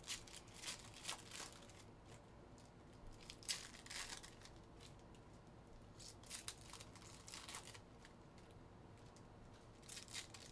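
Foil trading-card pack wrappers being torn open and crinkled, in four short spells of crackling a few seconds apart.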